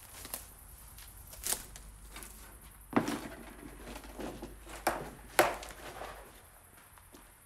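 Footsteps scuffing and crunching on a concrete floor strewn with rubble and debris: a few irregular sharp steps, the loudest about three and five and a half seconds in.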